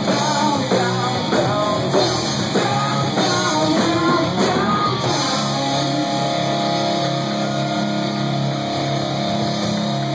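Live rock band: electric guitar and drum kit with vocals, the guitar lines bending and moving, then about halfway through the band settles into a long held, ringing chord.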